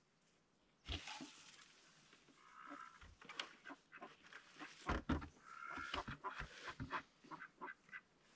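Wooden knocks and clatter as a cleated plank ramp is set against a wooden duck house, the loudest knock about five seconds in, with short nasal calls from Indian runner-cross ducks twice in between.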